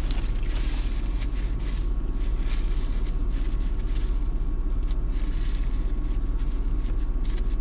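Steady low rumble of a car's engine idling, heard from inside the cabin.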